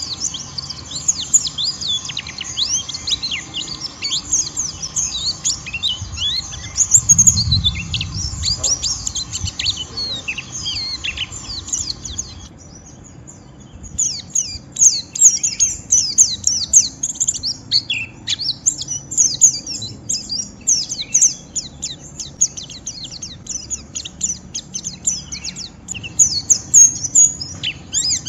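White-eye (pleci) in ngeriwik song: a harsh, fast chattering twitter of high notes that mostly slur downward. It breaks off for about a second and a half near the middle, then resumes. A brief low thump sounds about a quarter of the way through.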